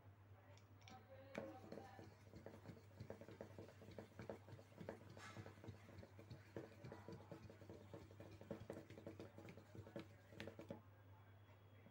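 Pencil tip rubbed rapidly back and forth against the metal pull-tab of a drink can: a faint, quick run of scraping clicks that starts about a second in and stops near the end, over a steady low hum.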